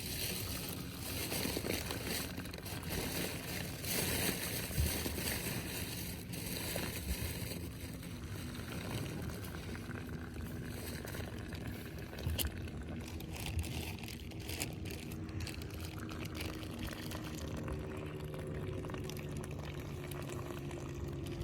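Sea water washing and splashing, with a motorboat engine humming steadily, most clearly in the last few seconds.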